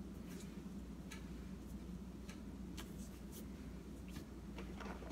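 A string of small, irregular clicks and taps from plastic tabletop miniatures being handled and set down on a paper game mat, over a steady low hum.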